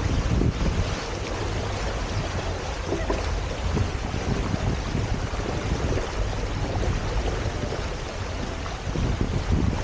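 Wind buffeting the camera microphone with a steady low rumble, over water rushing along the hulls of a Hobie Tiger F18 catamaran under sail.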